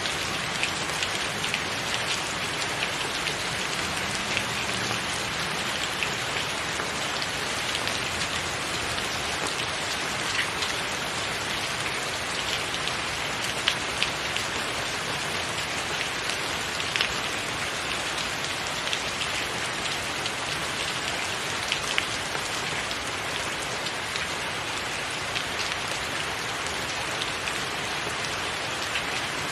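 Steady rain falling, an even hiss with many scattered individual drops tapping, a few of them louder than the rest.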